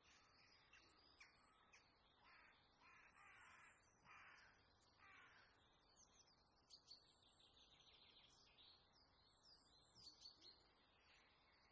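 Faint birds calling: a run of harsh, caw-like calls about two seconds in, then quick high chirps and trills from smaller birds.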